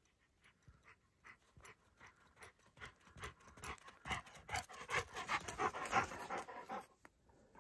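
Yellow Labrador retriever panting in quick, rhythmic breaths, about three a second, growing louder as it runs up close and stopping about seven seconds in.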